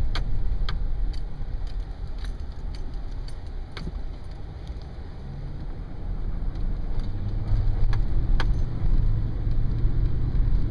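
A vehicle driving, heard from inside: a steady low rumble of engine and road, with scattered light rattles and clicks. The engine note grows stronger about halfway through.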